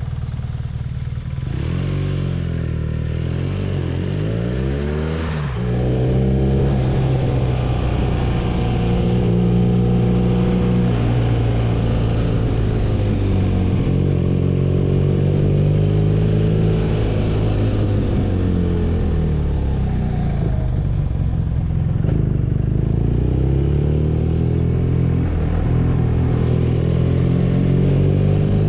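BMW R nineT's boxer twin engine pulling the motorcycle along, its pitch rising and falling with the throttle. It gets louder about five seconds in, then runs at a steady cruise with slow swells in pitch.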